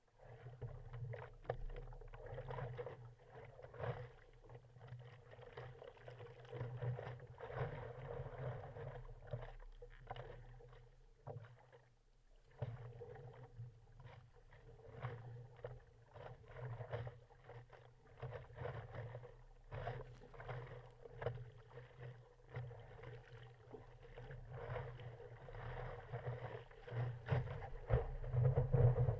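Water lapping and splashing against a stand-up paddleboard in irregular splashes, growing louder near the end as the board catches a breaking wave.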